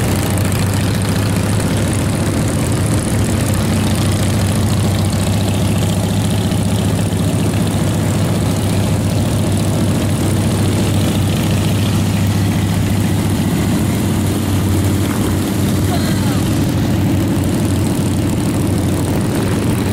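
Cruiser motorcycle engines running steadily at road speed, a low even drone, under a constant rush of wind and road noise.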